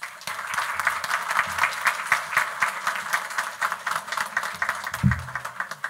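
Audience applauding with dense hand clapping that thins out toward the end. A brief low thump comes about five seconds in.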